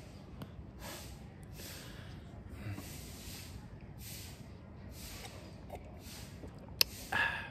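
A man breathing hard after a run, an even rhythm of noisy breaths, one about every three-quarters of a second. Near the end comes a sharp click, then a short voiced sigh.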